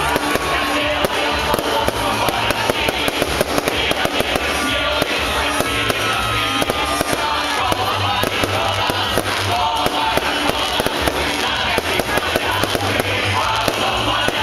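Music with a repeating bass line plays over the dense, continuous crackling and popping of a large bonfire.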